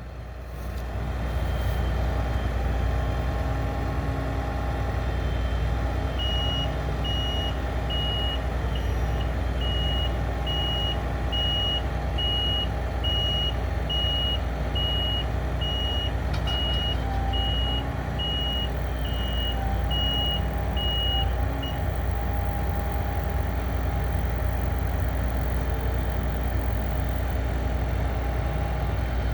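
Combine harvester's engine running steadily, with a reversing alarm beeping about one and a half times a second from about six seconds in until about twenty-two seconds in.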